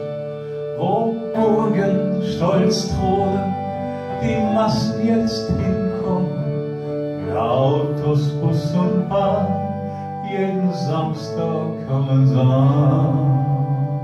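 Nylon-string classical guitar played live, accompanying a man singing.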